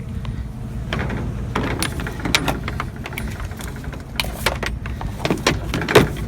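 A vehicle engine idling steadily, with a run of knocks, clicks and rattles from about a second in as curbside items are picked up and handled.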